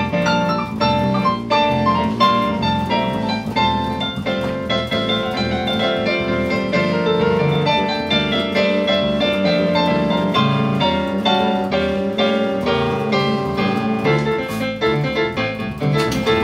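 Live instrumental music: a keyboard in a piano voice plays melody and chords over a plucked electric bass line, continuously and at an even level.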